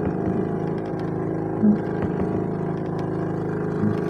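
Boat engine running steadily at idle, an even low hum.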